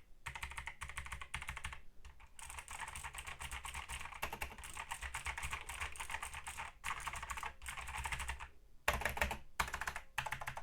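Fast, continuous typing on a mechanical keyboard, with rapid key clicks broken by a few brief pauses.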